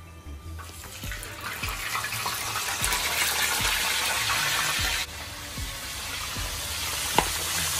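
Whole pompano sizzling in hot peanut oil as it is laid in the pan, a loud frying hiss that builds from about a second in, drops sharply about five seconds in, then keeps on more softly. A single metal clink comes near the end.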